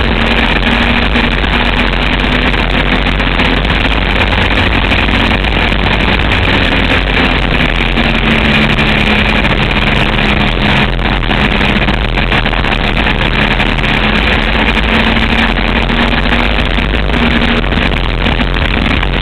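A trike's engine running steadily while the trike is under way, with road and wind noise heard close from a camera mounted on the machine.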